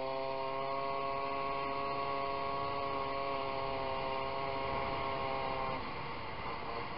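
Peugeot 103 moped's 50 cc single-cylinder two-stroke engine running at steady high revs on the move, a constant buzzing drone. About six seconds in the steady tone breaks up into a rougher noise.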